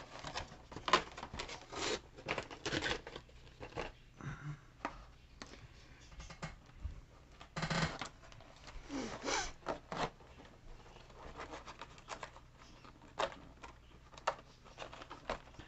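Clear plastic packaging of a Pokémon card collection box being handled and opened by hand: irregular crinkling, scraping and clicking of stiff plastic, with a couple of longer scrapes about halfway through.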